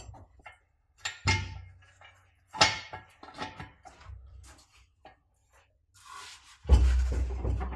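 Knocks and scrapes of a BMW E30 fuel tank being worked loose from the car body, spaced out in short handling sounds, with a louder, longer rumbling scrape near the end as it shifts.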